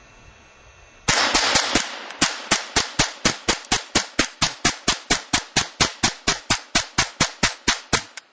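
Rapid semi-automatic fire from a Ruger 10/22 .22LR rifle. It starts about a second in with a quick cluster of shots, then settles into a steady string of sharp cracks about three a second, and cuts off suddenly near the end.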